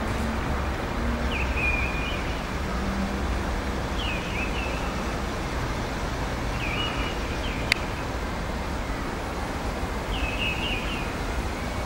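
A bird repeating a short chirping call every two to three seconds over a steady rumbling background noise, with one sharp click about two-thirds of the way through.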